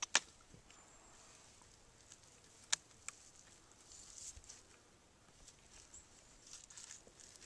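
A North American porcupine clambering over dry dead branches in grass, with light rustling and scraping. There is a sharp click just after the start and two more a little under three seconds in.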